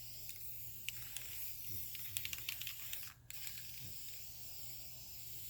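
Aerosol spray can of lacquer hissing as it sprays, with a short break about three seconds in and a few light clicks.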